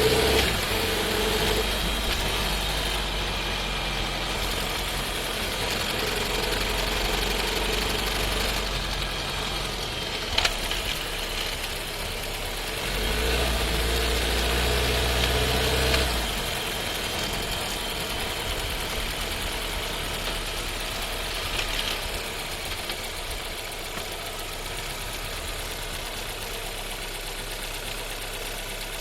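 Inside the cabin of a Skoda Scala 1.5 TSI with a DQ200 seven-speed dry-clutch DSG, rolling at low speed: engine running with a vibration at about 15 km/h and a loud downshift, which the owner takes for faulty gearbox behaviour. A sharp click comes about ten seconds in, the sound swells for a few seconds, then settles to a quieter steady engine sound.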